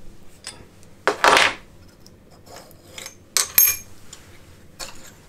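Steel hex key and metal parts clinking against a milling-machine vise: a short rattling clatter about a second in, then two sharp ringing metallic clinks about three and a half seconds in.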